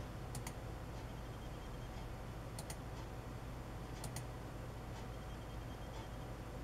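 Computer mouse clicks: a single click, then two quick pairs of clicks about a second and a half apart, over a low steady hum.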